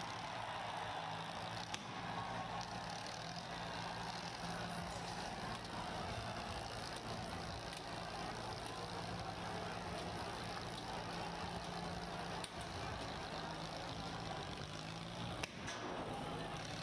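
Tractor diesel engines running steadily under the din of a large crowd, with a couple of sharp cracks, one near the start and one near the end.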